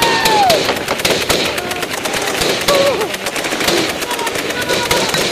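Rapid automatic gunfire: a dense, continuous crackle of many shots a second.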